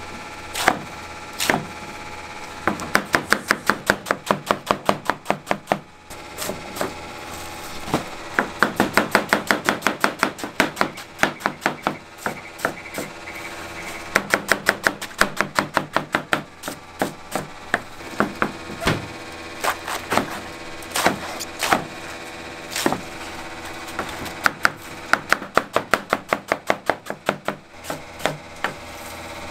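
Knife chopping vegetables on a cutting board in quick, even runs of about five strokes a second, pausing briefly between runs.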